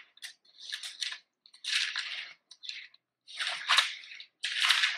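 Bible pages being turned while looking for a passage: several short, dry papery rustles, one after another.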